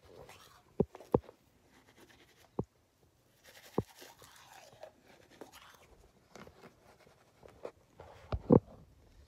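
Manual toothbrush scrubbing teeth, a faint scratchy brushing noise in patches. Several short sharp knocks break in, the loudest two near the end.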